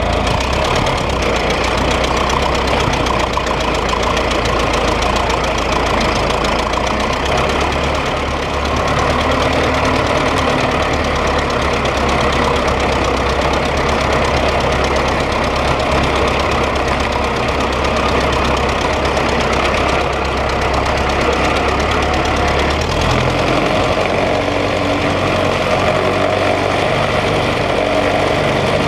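Homemade 1927 Model T Ford tractor's four-cylinder flathead engine running steadily under way, pulling a walking plow. Its low note shifts about three-quarters of the way through.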